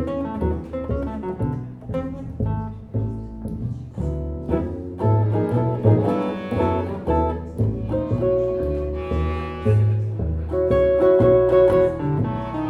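Small live band playing an instrumental passage: a plucked bass line moving note to note beneath guitar and other instruments.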